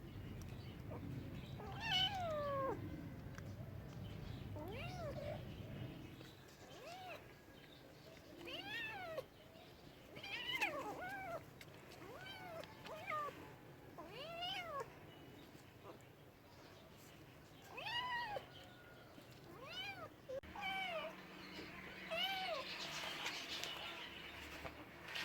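Domestic cat meowing over and over in short calls, each rising then falling in pitch, about one every second or two; the first, about two seconds in, is the loudest and longest.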